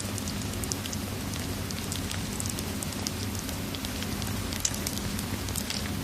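Wood fire crackling with frequent small, irregular pops over a steady hiss of rain and a low, even rumble.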